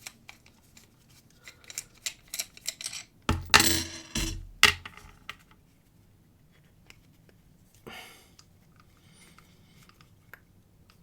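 Phillips screwdriver working a tight screw in a metal padlock body, which seems to be held with threadlocker: small metal clicks and scrapes, a loud grating scrape about three and a half seconds in, then a sharp click.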